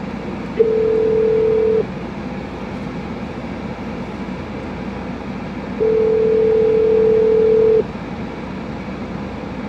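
Telephone ringback tone heard over a phone's speaker while a call waits to be answered. A steady tone sounds twice, about a second the first time and about two seconds the second, with a long pause between, over a steady low hum inside the car.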